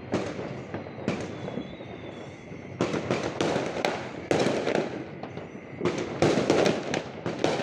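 Fireworks going off in quick succession: a rapid crackle of many sharp reports over a continuous rumble, with denser, louder clusters about three seconds in, about four and a half seconds in, and again around six to seven seconds in.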